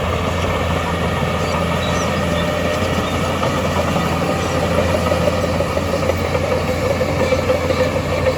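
Heavy earthmoving machine's diesel engine running steadily, with a constant whine over its low drone.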